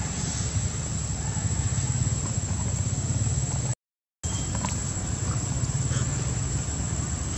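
Wind rumbling on the microphone, with a thin steady high-pitched whine above it and a few faint ticks. The sound cuts out completely for about half a second near the middle.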